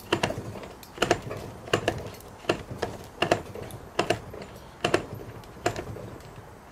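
Echo Speed Feed trimmer head ratcheting as it is twisted by hand to wind new trimmer line onto the spool. Short clicks come in small clusters about every three-quarters of a second.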